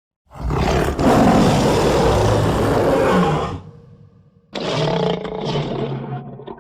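Lion roaring twice: a long roar of about three seconds, then after a short gap a second roar of a little over two seconds.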